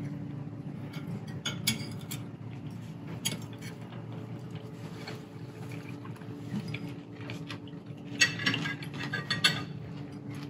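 Knives and forks clinking and scraping on ceramic plates as people cut and eat, with scattered clicks and a busier run of clinks about eight seconds in, over a steady low hum.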